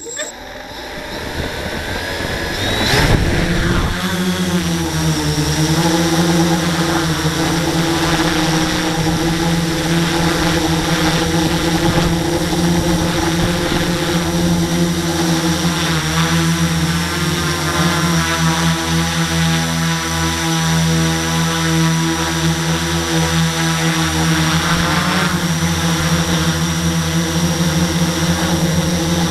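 Electric motor and propellers of a radio-controlled model aircraft, heard from its onboard camera. They spin up over the first few seconds as it lifts off, then run as a steady whine with small shifts in pitch as it flies.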